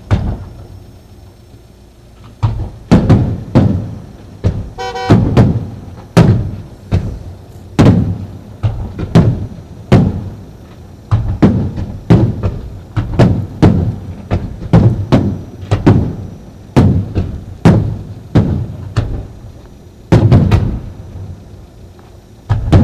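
Aerial firework shells bursting in a rapid barrage, about two loud booms a second, each trailing off in an echo. The barrage starts a couple of seconds in, pauses briefly near the end, then resumes.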